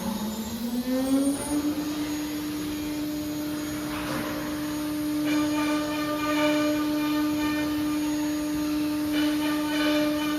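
CNC nesting machine's router spindle spinning up, its whine rising in pitch for about a second and a half and then holding steady at speed. From about five seconds in, a set of higher whining tones joins it.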